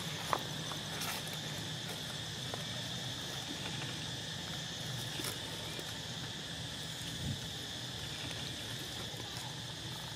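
Steady insect chorus, an even high-pitched buzz, over a low steady hum, with an occasional faint tick.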